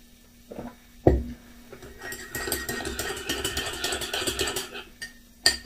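A ceramic mug set down on the table with a single knock, then a teaspoon stirring in the mug with rapid clinking for about three seconds, and a sharp clink near the end.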